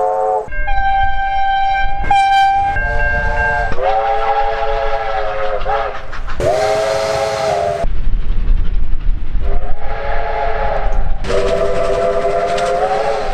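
Australian train air horns sounding a series of separate blasts, most of them multi-note chords and one an early single-note blast, over the low rumble of a train. A hiss rises with some of the later blasts.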